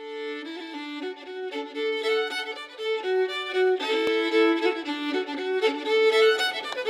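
Intro music: a fiddle playing a quick melody of short notes, getting louder over the first couple of seconds.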